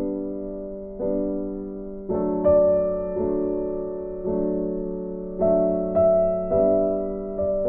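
Music: a slow, gentle piano-like melody, single notes struck about once a second, each one fading away.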